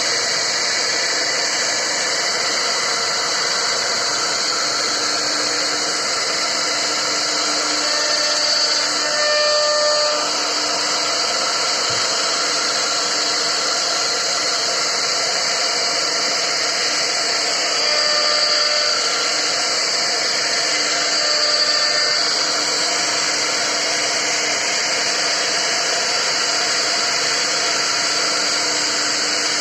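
CNC router spindle running steadily as it carves a wooden board, a constant whine over the cutting noise. The whine shifts pitch briefly a few times as the load changes.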